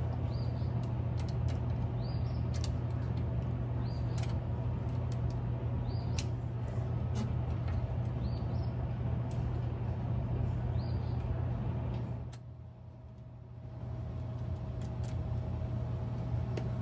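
Small 8mm end wrench clicking on the double-cardan driveshaft's flange bolts at the transfer-case yoke as they are broken loose, sharp clicks every one to two seconds, over a steady low hum. The hum drops away briefly about twelve seconds in.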